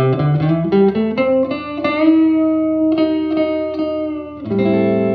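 Electric guitar, a Telecaster with single-coil pickups, played through a cranked, overdriven tube amplifier. A quick run of notes climbs in pitch over the first two seconds, then come a few picked notes held out, and a chord rung out about four and a half seconds in. A low mains hum sits underneath, from the single coils on old house wiring.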